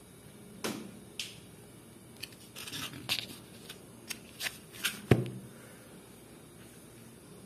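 Hands taking sliced cheese and ham from a cling-film-wrapped foam tray and laying them in an aluminium baking pan: a string of light rustles and clicks, with one louder knock about five seconds in.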